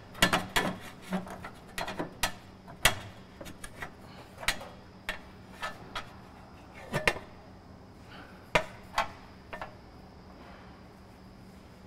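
Metal fuel-tank strap clanking and scraping against the tank and frame as it is worked loose by hand: a string of irregular sharp clicks and knocks, thick at first and spaced out later, stopping about nine and a half seconds in.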